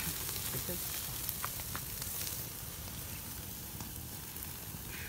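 Marinated chicken pieces sizzling on a wire grill over an open wood fire, with a few faint crackling pops. The oil from the marinade is dripping into the flames.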